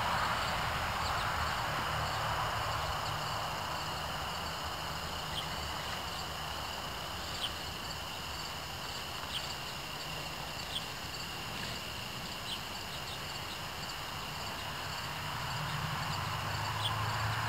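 Outdoor background of insects calling steadily at one high pitch over an even hiss and a low hum, with a few faint clicks scattered through.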